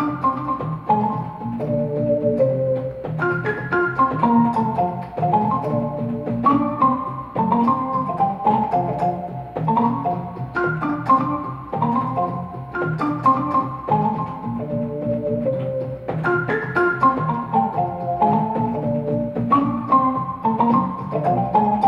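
Portable electronic keyboard played with an organ voice: a melody over sustained lower chords, in phrases a few seconds long that start high and step down.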